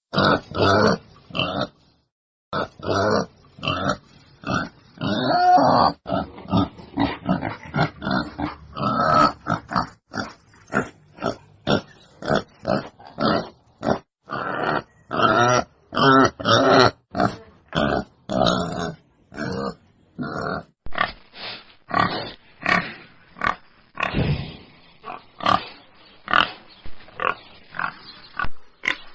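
Wild boar grunting in a fast, uneven series of short calls, a few of them longer and drawn out, with a brief pause about two seconds in.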